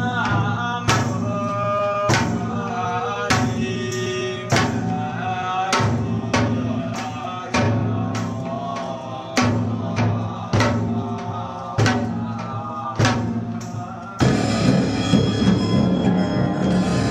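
Buddhist monks' low mantra chanting, mixed into a mashup with a drum struck at an even beat of roughly one stroke every second and a bit. About 14 seconds in, the strikes give way to a denser, continuous chanting drone.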